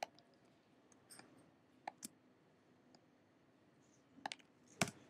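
Computer mouse buttons clicking faintly a handful of times: one click at the start, two close together about two seconds in, and two more near the end.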